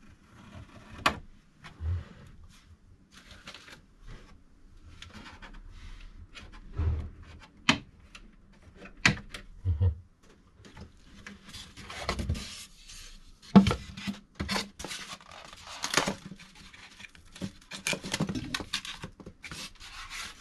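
Hands unpacking a boxed 3D printer: scattered sharp clicks and knocks and a few soft thumps, then a stretch of dense rustling of packaging material in the second half.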